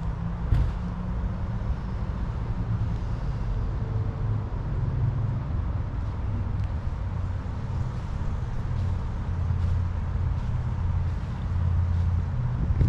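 Motor vehicle running, a steady low rumble, with a few faint ticks over it.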